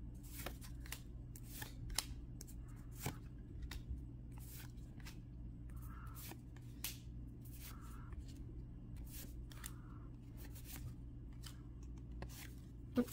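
Yu-Gi-Oh trading cards being flipped through by hand one at a time, each card slid from the front of the stack to the back: a run of quick, irregular card clicks and slides.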